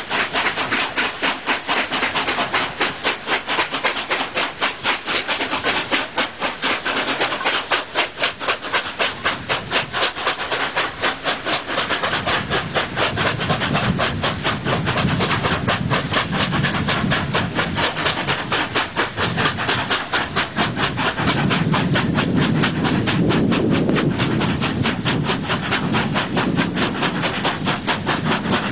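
Exhaust of two steam locomotives, NSW C36 class 3642 and D59 class 5910, working hard up a steep grade: a fast, even stream of sharp chuffs with hiss. A deeper rumble joins in about halfway through.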